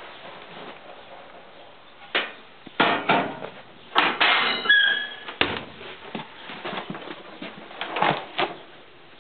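Cupboard doors being opened and shut by hand: a series of knocks and clatters, with a short squeak a little before the middle.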